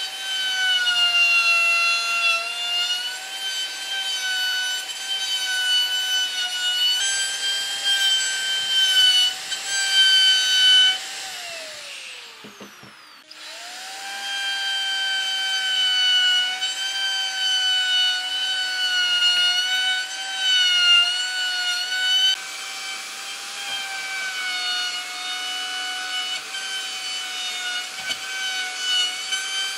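A DCA AMR02-12 electric plunge router runs at high speed as its bit cuts into a hardwood slab, a steady high whine that dips and wavers as the bit bites. About twelve seconds in the motor winds down to a stop, then starts up again a second later.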